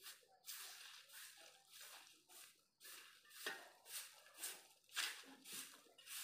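Repeated scraping strokes of a shovel and a broom gathering dry leaves and debris on a concrete road, about two strokes a second.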